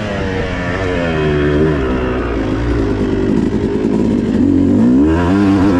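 250 cc two-stroke motocross bike engine revving up and down under the rider's throttle. Around the middle the engine runs lower and rougher, and its pitch climbs again near the end.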